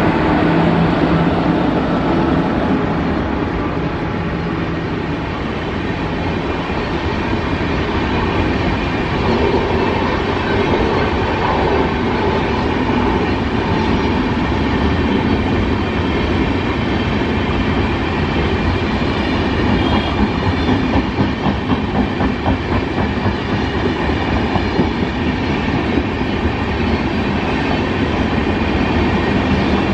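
Express passenger train passing at speed: a loud, steady rumble of the coaches with wheels clattering over the rails. The clatter comes through in a quick rhythm about two-thirds of the way through.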